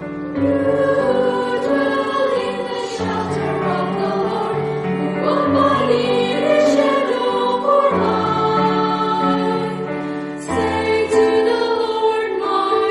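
Choir singing a slow sacred piece in long held chords that change every few seconds.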